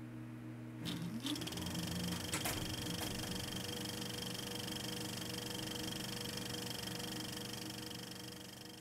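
A steady mechanical hum at several pitches, with a few sharp clicks in the first three seconds and a short rising whine about a second in.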